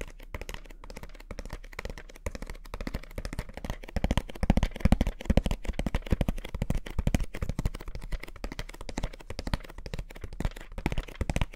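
Fingernails tapping rapidly on a small cardboard product box: a dense run of clicking taps, heavier and louder a few seconds in.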